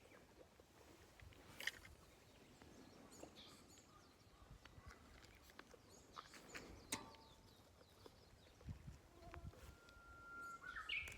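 Faint birdsong: scattered chirps and calls, ending in a held whistled note that jumps up into a higher chirp. Two sharp clicks are heard, one early on and one about seven seconds in.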